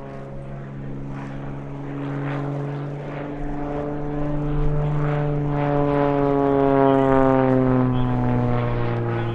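Twin piston engines and propellers of an Aero Commander flying past under power. The drone grows louder to a peak about seven seconds in, and its pitch drops slightly as the plane goes by.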